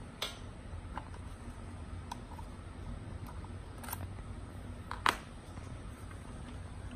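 Black plastic crossbar foot and aluminium bar being handled and fitted by hand: scattered light clicks and taps, a sharper click about a quarter second in, and the loudest knock about five seconds in, over a low steady hum.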